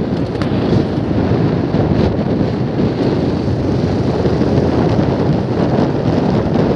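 Steady wind rush buffeting the microphone of a camera carried in a moving vehicle, with the vehicle's road and running noise underneath.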